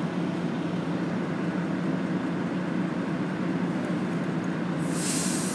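City bus heard from inside the cabin: a steady low engine and running drone. Near the end a sudden loud hiss of released air starts over it.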